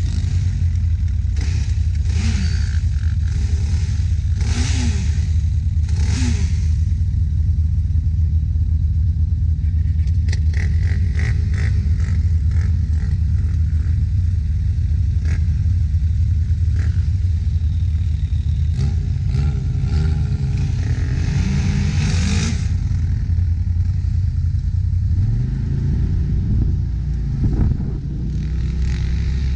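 Off-road engines: a side-by-side UTV engine running with a steady low drone, while a quad ATV close alongside revs in short rising bursts, several times in the first few seconds and again near the end.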